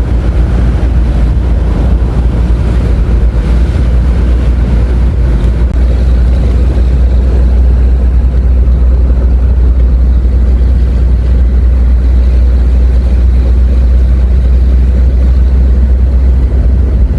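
Vehicle driving on a paved road: a steady, loud low rumble of engine and road noise.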